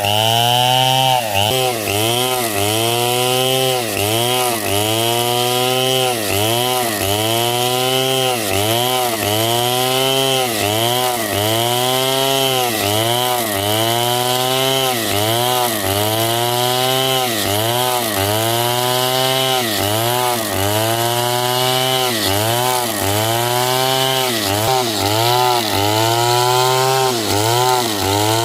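Stihl chainsaw cutting through hard coconut-palm wood at full throttle. The engine pitch sags and recovers about once a second as the chain bites under load.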